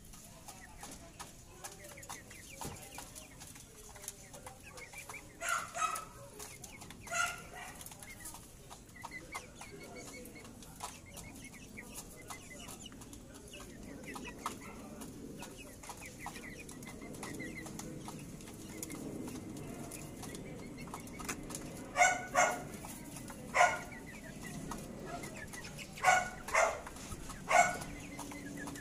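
Silkie chickens clucking: a couple of short calls in the first quarter, then a quick run of louder, sharper calls in the last several seconds.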